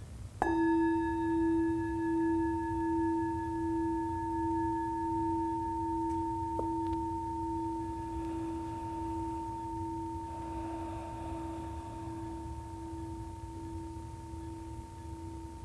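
Hammered brass singing bowl struck once about half a second in, then ringing on with a low hum and higher overtones, fading slowly with a pulsing waver.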